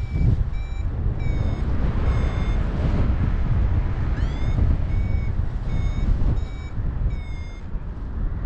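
Paragliding variometer beeping steadily at about two short high beeps a second, the climb tone that signals the glider is rising in lift, with one quick rising chirp about four seconds in; the beeps stop just before the end. Under it, airflow rumbles on the microphone.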